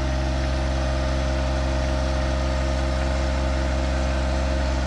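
John Deere 1025R sub-compact tractor's three-cylinder diesel engine running at a steady, unchanging speed.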